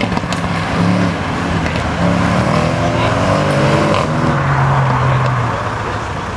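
Audi RS6 C7 Avant's twin-turbo V8 revving, its pitch rising and falling several times, with a long rise about three seconds in before it settles to a steadier lower note. A few sharp exhaust cracks break through.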